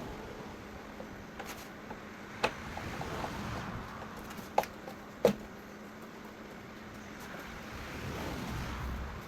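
A few sharp clicks and knocks of parts being handled and fitted, over a low background hiss with a faint steady hum, while a lawn tractor's dash and steering wheel are put on.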